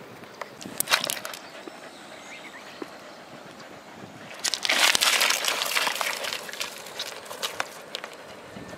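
Stones clicking and crunching on a pebbly riverbank as a corgi moves about, with a louder rough crunching rush of about two seconds near the middle.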